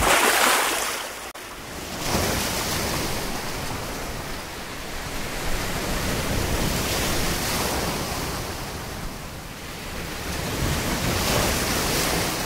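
Sea waves breaking and washing in, the surge swelling and falling back every few seconds.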